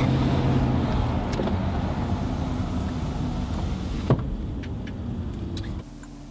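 A Porsche driving through town, heard from inside the cabin: steady engine and road hum that slowly eases off. There is a single sharp click about four seconds in, and the sound cuts off abruptly near the end.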